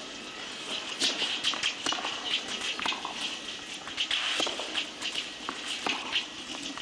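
Tennis rally on a clay court: a series of sharp pops of racket strings striking the ball, with smaller clicks and scuffs between, over a steady hiss.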